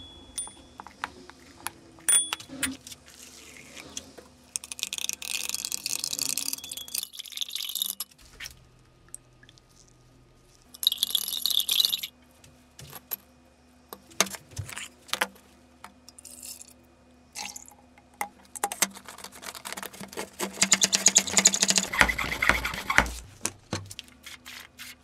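Glassware and tools being handled on a workbench: scattered light clinks and taps, with several short hissing stretches, the longest and loudest near the end.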